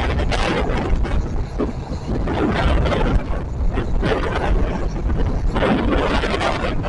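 A passenger train in motion: a steady low rumble of wheels on track, mixed with gusty wind noise.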